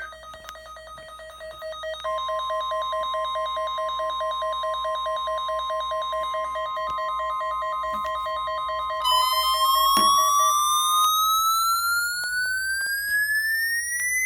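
Weather radio alert tones: a rapidly pulsing alarm beep and, from about two seconds in, a steady single-pitch warning tone, both stopping about ten seconds in. About nine seconds in a siren starts winding up, its pitch rising steadily to the end.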